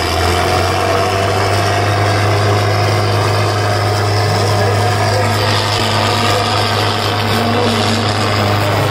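Tractor diesel engines running hard and steady with a deep, unbroken drone as two tractors strain against each other in a tug of war.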